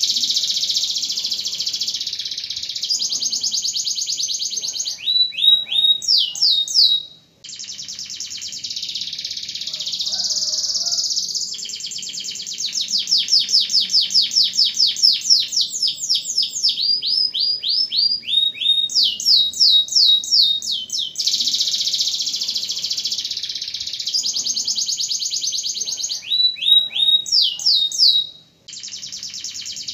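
Domestic canary singing a long, loud song of fast rolling trills and runs of repeated downward-sliding notes, breaking off briefly twice, about seven seconds in and near the end.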